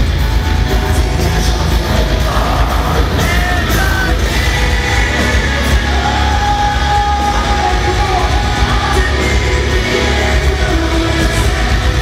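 Metalcore band playing live through a hall's PA: distorted guitars, bass and drums, with a vocalist singing and yelling over them. Loud and unbroken, heard from within the crowd with a heavy low end.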